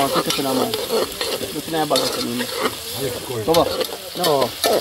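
A spoon stirring boiled dumplings and yam in an aluminium pot, scraping against the pot in repeated short, wavering squeaks, with sharp clicks as it knocks the metal. A steady hiss runs underneath.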